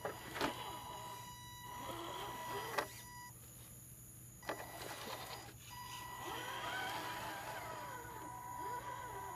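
Axial SCX10 1/10-scale RC crawler's electric motor and gears whining as it crawls over sand, in two spurts. A steady high whine stops about three seconds in and comes back near six seconds, with the pitch wavering up and down as the throttle changes, and a few sharp clicks along the way.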